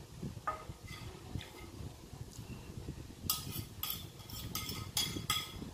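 A metal spoon scraping and clinking against a plate, gathering up the last of the food. Faint at first, then a run of sharp strokes about three a second through the second half.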